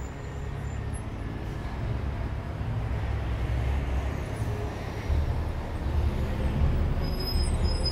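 Low, steady rumble of a car and road traffic, growing louder about five seconds in.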